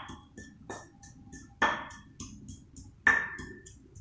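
Sharp knocks about five times at uneven intervals, each with a short metallic-sounding ring, over faint background music with quick high ticks.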